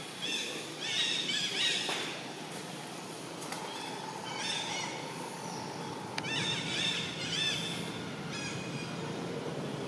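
Short, high, arching chirping calls from an animal, coming in quick runs of several at a time, repeated a few times. The loudest run is about a second in. A faint steady whine sits under them in the middle.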